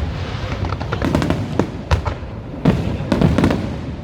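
Aerial fireworks going off in rapid succession: a string of sharp bangs and crackles over a continuous low rumble, with the strongest reports about a second in, near two seconds and around three seconds.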